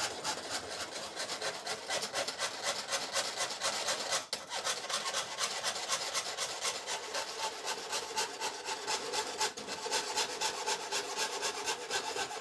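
Hand fret saw cutting thin 0.5 mm sheet metal, a quick even run of rasping strokes with one brief break about four seconds in.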